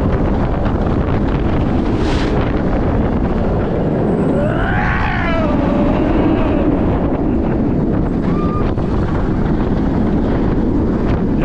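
Ride on an inverted steel roller coaster: steady rush of wind over the microphone and the train running on the track. A rider lets out one long 'whoa' that rises and falls about five seconds in.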